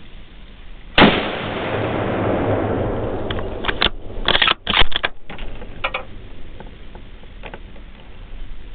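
A .30-06 bolt-action rifle fires once, about a second in: a sharp crack whose report rolls away over the next two seconds or so. From about three seconds in comes a quick run of short, loud clacks, the loudest sound of all.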